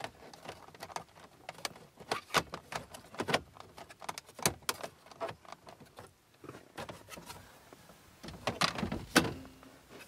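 Hard plastic dashboard trim panel being handled and pressed into place around the ignition cylinder: scattered plastic clicks, taps and rattles, with a louder knock near the end.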